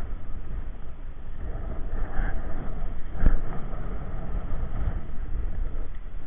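Inline skate wheels rolling over rough asphalt, a steady low rumble with wind on the microphone, and a single knock about three seconds in.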